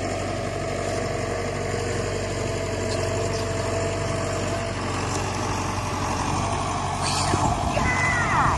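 Engine idling steadily. Near the end come a few high squeals sliding down in pitch.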